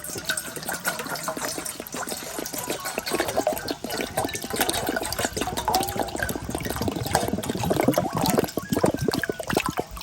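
Dense crackling and bubbling with many small pops, liquid-like, growing busier in the second half.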